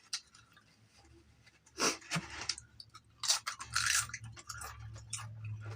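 A person chewing and crunching crispy food, with two louder crunchy bites about two seconds and three and a half seconds in.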